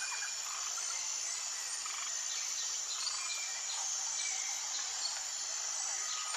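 Steady high-pitched chorus of insects with scattered short bird chirps over it.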